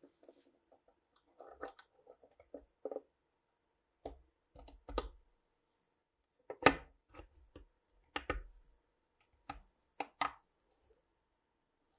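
Irregular sharp clicks and knocks of small pistol parts and tools being handled on a workbench, the loudest knock a little past the middle.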